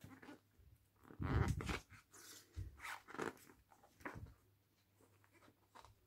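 Pages of a paper LEGO instruction booklet being flipped through by hand: several quick page flips, the loudest a little over a second in, then a few quieter ones and light handling noise.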